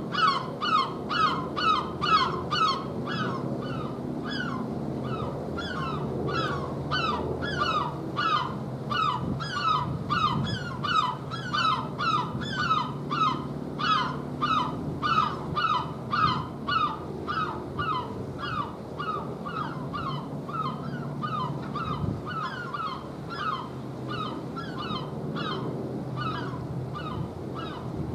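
A bird calling over and over in short, slightly falling calls, about two to three a second without a break, louder in the first few seconds and again around the middle.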